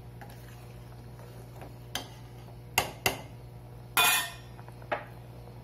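Stainless-steel ladle clinking against the rim and side of a steel cooking pan, about five sharp clinks between two and five seconds in, the one near four seconds in longer and brighter, like a scrape or tap as the ladle is lifted out. A steady low hum runs underneath.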